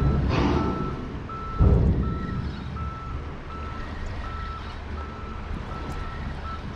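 A vehicle's reversing alarm beeping steadily at one pitch, about one beep every three quarters of a second. Two brief low thuds come near the start and about a second and a half in.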